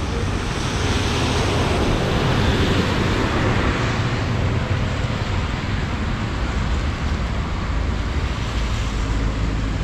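Steady rushing noise of a swollen, flooded river, with wind rumbling on the microphone.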